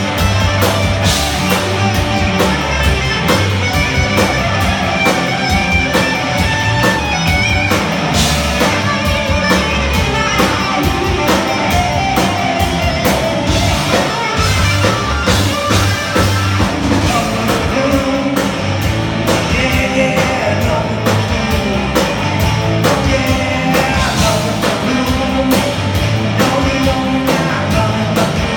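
A live rock band playing a song: electric guitar, bass and drum kit, with a singer.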